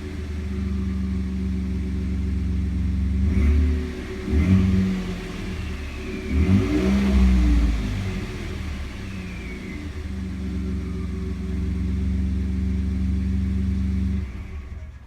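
Ford F-150 EcoBoost twin-turbo V6 idling through a Raptor exhaust with the resonator deleted. It is revved in a few short blips, the longest about halfway through, then settles back to a steady idle and is shut off near the end.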